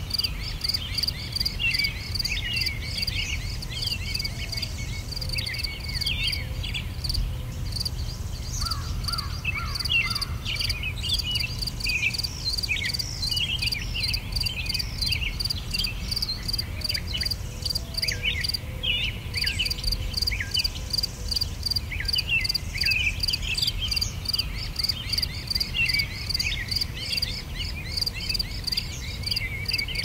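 Birds chirping with many short, quick falling notes over a steady, fast-pulsing insect chorus, with a low steady rumble underneath.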